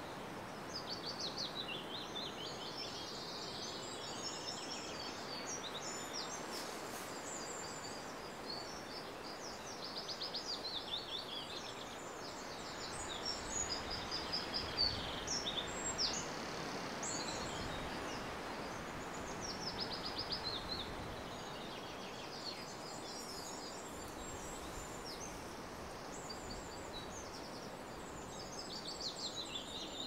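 Small songbirds singing and chirping, with quick high trills and repeated phrases throughout and a few louder notes around the middle, over a steady background hiss.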